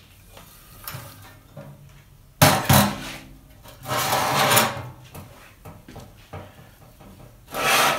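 Things being handled and knocked about. Two sharp knocks come close together about two and a half seconds in, followed by a short scraping slide, and another scrape near the end.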